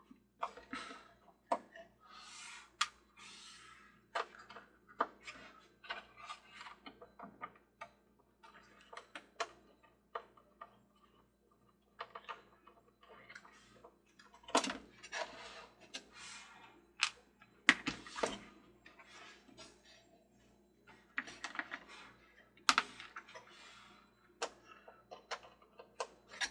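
Irregular small clicks, taps and scrapes of a screwdriver and fingers on the plastic base and gearbox of a Mr. Christmas Ferris wheel as its gearbox mounting screws are taken out. A few sharper knocks come around the middle and near the end.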